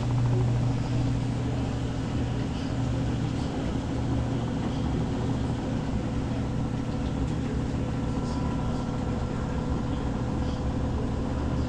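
Samsung front-loading washing machine running a wash cycle, with a steady low motor hum and no breaks. Its drain filter has just been cleared of gunk to cure an SUD error.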